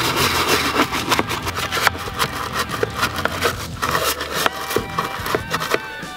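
Soft-bristled detailing brush scrubbing the hard plastic of a car's centre console tray and cupholder in quick back-and-forth strokes, a dense scratchy brushing.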